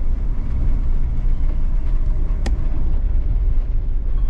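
Steady, heavy low vehicle rumble, with one short high squeak about two and a half seconds in.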